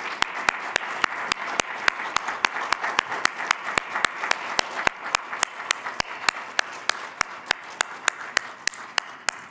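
Applause: a steady wash of clapping with sharp, close claps standing out about four to five times a second, cutting off abruptly at the end.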